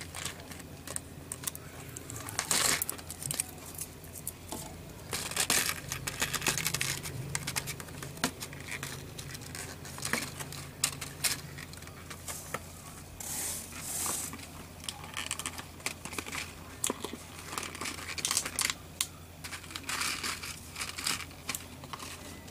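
Clear plastic packaging crinkling and rustling as it is handled, in irregular crackly bursts.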